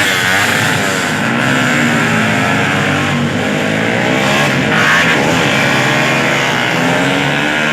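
Several tuned racing motorcycle engines running at high revs together, their pitches rising and falling and crossing as the bikes accelerate and shift.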